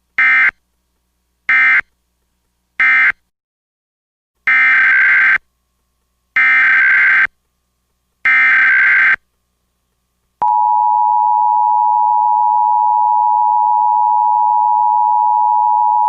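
Emergency Alert System data bursts: three short end-of-message bursts, then three longer header bursts about a second apart, each a harsh electronic screech. About ten seconds in, a loud steady alert attention tone starts and holds.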